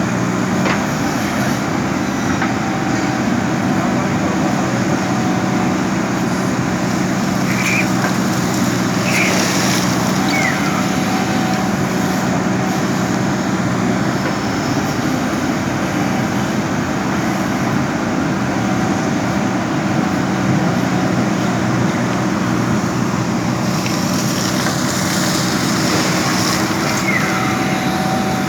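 JCB backhoe loader's diesel engine running at a steady hum, with a few brief high chirps over it.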